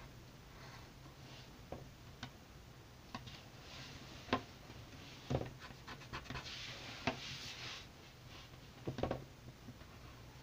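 Graphite pencil scratching over paper as it sketches, with scattered light taps and knocks of the pencil and hand on the paper and table. The scratching is densest a little past the middle.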